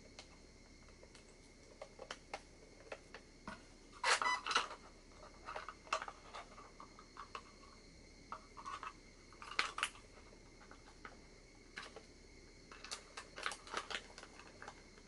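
Irregular clicks, knocks and clatter of a LiPo battery and its wiring being pushed and wrestled into an airsoft electric gun. The loudest clatters come about four seconds in, near ten seconds and again near the end.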